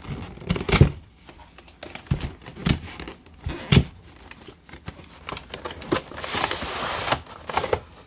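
Cardboard and plastic packaging of a trading-card collection box being opened: sharp knocks and crinkles as the box is handled, then a longer scraping rustle about six seconds in as the plastic tray comes free.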